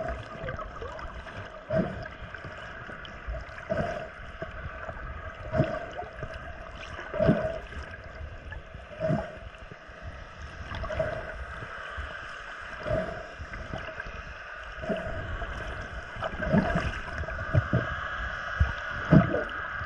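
Muffled underwater water noise around a swimming snorkeler, heard through a submerged camera. Rhythmic swishes come about every two seconds and grow stronger near the end.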